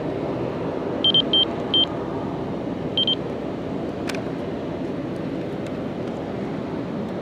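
Steady low rumble of distant engine noise, with a quick run of short, high, even-pitched beeps about a second in and two more near three seconds.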